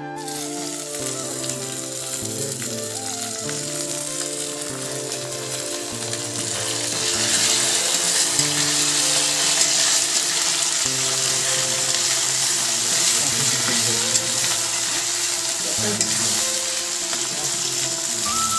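Sliced onions sizzling as they fry in oil in a kadai, turned with a spatula; the sizzle grows louder about seven seconds in. Background music with held low notes plays underneath.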